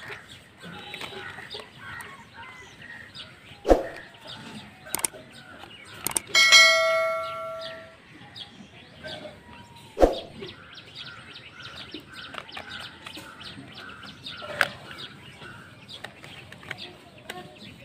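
A single bell chime rings about six seconds in and fades out over a second or so, a notification sound effect for a subscribe-button animation. It is the loudest sound. Sharp plastic clicks come a few times as parts of a toy bus are pressed together, and birds chirp throughout.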